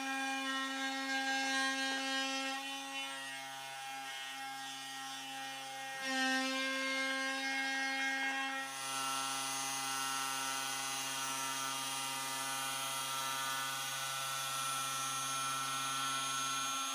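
A 3D-printed MPCNC Lowrider 2 CNC router milling wood: the spindle's motor runs at a steady pitch while the stepper motors' whine changes pitch and stops and starts as the machine changes moves, about 3, 6 and 9 seconds in.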